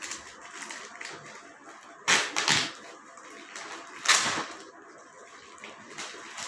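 Plastic courier mailer bag being torn open by hand: two loud rips about two seconds apart, each about half a second long, with crinkling and rustling of the plastic in between.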